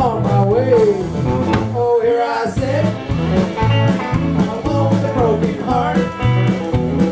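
Live band playing a country-rock song: electric guitar over a steady, repeating bass line, with a lead melody that bends up and down in pitch.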